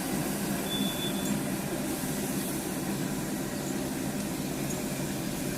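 Steady hum and rush of a running wood pellet grill, its fan blowing air through the firepot.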